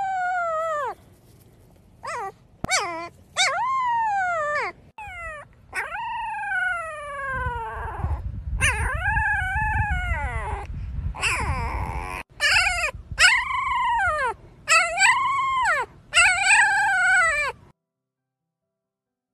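Dog whining: a long series of high-pitched whimpers, each rising and falling in pitch, some short and some drawn out, that stops near the end. Soft low rustling runs under the middle of the series.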